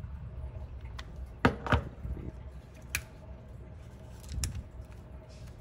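Handling noise from working on a plastic toy shell and its fur: a few sharp clicks and taps, the loudest two close together about a second and a half in, over low rustling.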